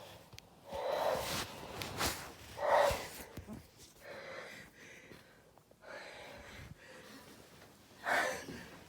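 Sneezing fits with gasping in-breaths between them. The loudest burst comes about three seconds in and another near the end.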